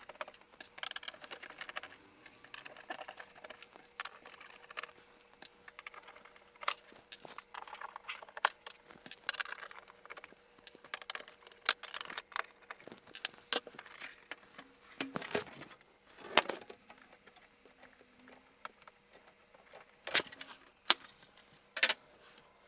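Irregular clicks, taps and short rattles as a Wacom graphics tablet's plastic case is taken apart by hand, with parts shifted and set down, over a faint steady hum.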